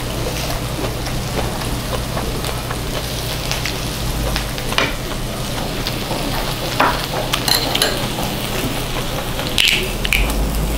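Thin-sliced pork belly (daepae samgyeopsal) sizzling on a cast-iron pot-lid griddle, a steady hiss, with scattered clicks of metal chopsticks against the griddle. Near the end a few sharp clicks as a soju bottle cap is twisted open.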